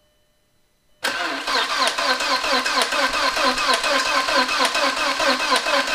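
2000 VW Passat's 1.8-litre turbo four-cylinder engine cranking on the starter motor with an even, rapid beat, starting about a second in and never catching: a no-start after a cylinder head and timing belt replacement.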